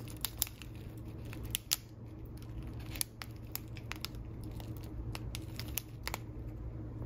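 A small clear plastic sachet of loose-leaf tea crinkling between the fingers as it is turned, in scattered crackles and clicks over a steady low hum.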